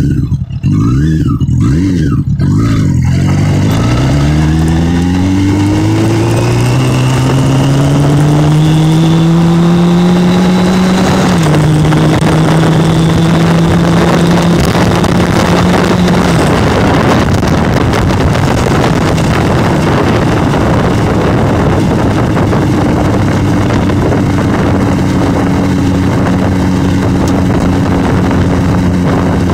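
Motorcycle engine blipped a few times, then accelerating with its pitch rising, dropping at a gear change about eleven seconds in and rising again. After that the engine holds a steady pitch at cruising speed under a loud rush of wind on the microphone.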